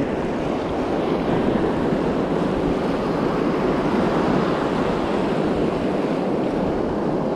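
Ocean surf washing and breaking in the shallows at a steady level, with wind buffeting the microphone.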